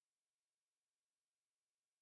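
Total silence: the audio drops out completely while the TV receiver loads a new channel.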